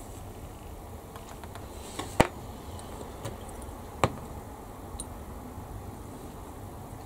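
A few sharp clicks and taps of small hard objects on a workbench, the two loudest about two and four seconds in, over a steady background hum.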